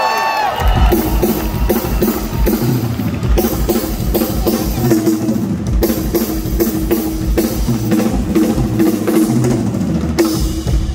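A live rock band kicking in through the PA about half a second in: a drum kit with a steady kick and snare under sustained electric guitar notes, just after the long held end of the announcer's shouted name.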